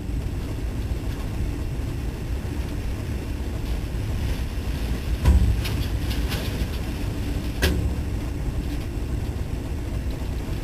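Strong tornado wind and rain buffeting a train: a steady low rumble with a few sharp knocks, about five seconds in and again near eight seconds.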